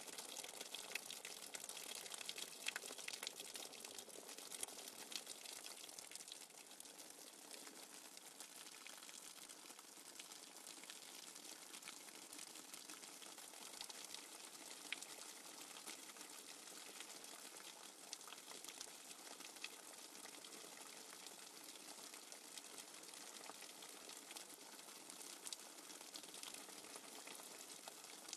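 Faint, steady bubbling of running water with fine crackles through it, from a nature-sounds recording.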